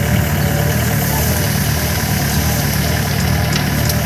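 Off-road vehicle's engine running steadily with an even low rumble.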